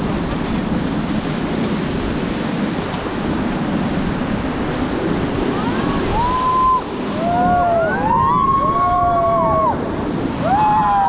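River rapids rushing, with wind buffeting the microphone. From about six seconds in, rafters let out several long, high-pitched whooping shouts that overlap one another.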